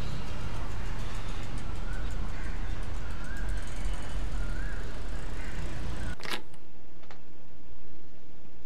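Steady outdoor ambience with a low traffic rumble and a few faint high chirps. About six seconds in it cuts to a much quieter room, marked by a sharp click and a fainter one a second later.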